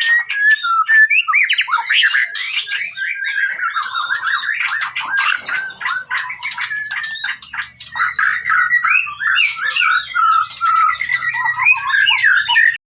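White-rumped shama (murai batu) singing a long, unbroken run of fast, varied whistles, chatters and sweeping notes that breaks off right at the end.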